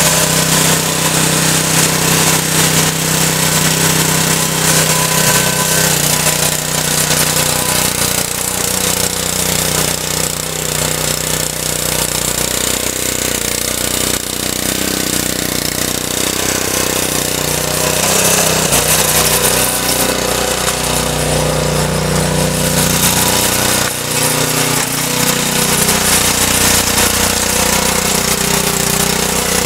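Cub Cadet RT 65H rear-tine tiller's Honda 6.5 HP single-cylinder engine running under load while its counter-rotating tines churn loose soil. The engine note shifts in pitch and dips briefly as the load changes.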